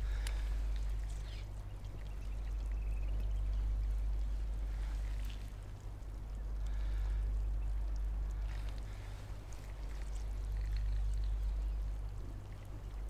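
Shallow seawater lapping and trickling among rocks at the water's edge, swelling and easing every few seconds over a steady low rumble.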